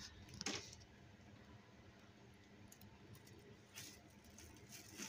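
Near silence, with three faint short handling noises, about half a second in, near four seconds and near the end, from plastic grocery bags being moved about.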